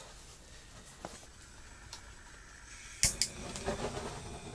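Handheld butane gas torch: two sharp clicks of its igniter about three seconds in, then the flame hissing steadily as it is held into a tent wood stove to light the fire.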